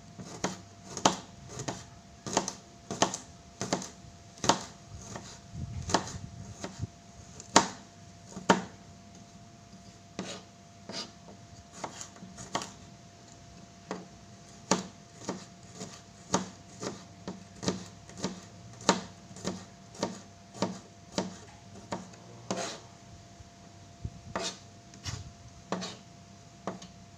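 Kitchen knife slicing garlic cloves on a plastic cutting board: sharp taps of the blade striking the board, about two a second with short pauses between runs.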